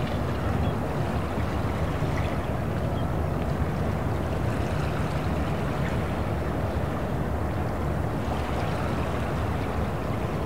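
Harbour ambience: a steady low rumble of boat engines, with water sloshing faintly.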